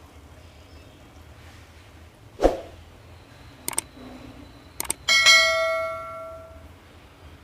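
Metal kitchenware knocking and clinking, then one ringing strike on a metal vessel that dies away over about a second and a half.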